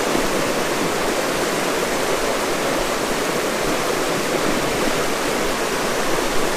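Small mountain river running steadily, a constant even rushing of water.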